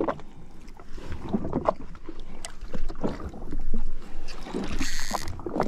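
Water slapping against a drifting jet ski's hull, with scattered knocks and handling noises and a brief hiss about five seconds in.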